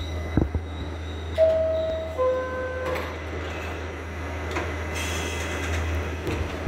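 R68 subway car's two-tone door chime, a higher note and then a lower one about a second and a half in, sounding over the car's steady low hum as the doors close. Sharp knocks come shortly after the start and again at the very end.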